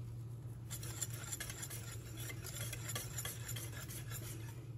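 A wire whisk stirring gelling powder into strawberry purée in a stainless steel saucepan: soft wet swishing with light scraping and clicking of metal against the pan, starting about a second in. A low steady hum runs underneath.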